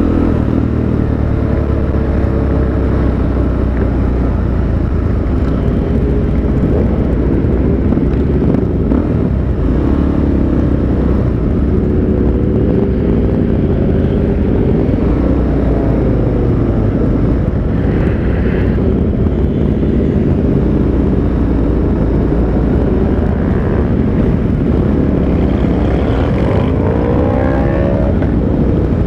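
Motorcycle engine running steadily while riding, with heavy wind noise on the microphone and other motorcycles of the group around it. The engine pitch drifts up and down with the throttle and climbs in a short run of revs near the end.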